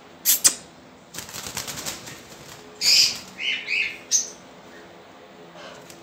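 Caged parakeets flapping their wings in a quick flurry about a second in, with a couple of sharp knocks just before it, then a few short, harsh calls around the middle.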